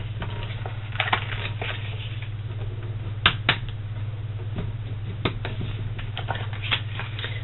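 Thick 120 lb white cardstock being folded along its score lines and creased flat with a bone folder and fingers: paper rustling with scattered sharp taps and clicks, over a steady low hum.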